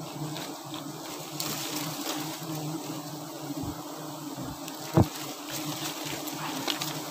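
Swarm of honeybees humming steadily around an opened wild comb being cut out with a knife, with faint clicks and one sharp knock about five seconds in.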